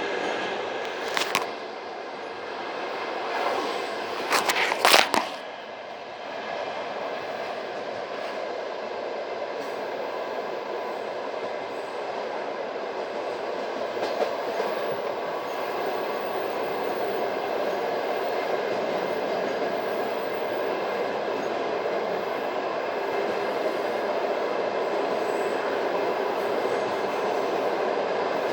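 Passenger train wheels running on the rails, heard from aboard the carriage: a steady rolling rumble that slowly grows louder, with a few sharp clacks of the wheels in the first five seconds.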